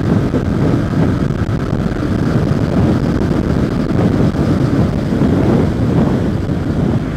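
Heavy wind rushing over the microphone of a Yamaha MT-15 motorcycle riding at about 90 km/h in sixth gear, with the bike's 155 cc single-cylinder engine running under it. The rumble stays steady throughout.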